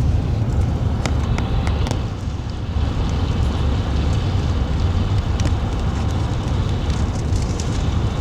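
Truck driving in rain, heard from inside the cabin: a steady low rumble of engine and road noise, with scattered light ticks of rain on the body.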